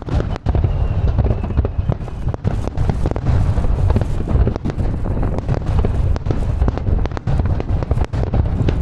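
Wind buffeting the microphone with a constant low rumble, broken by many scattered sharp cracks and pops of fireworks bursting.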